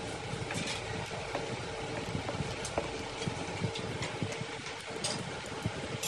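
A small motor running steadily with a faint hum, with scattered light clicks and rubs from a rubber hose being pushed onto a copper fitting.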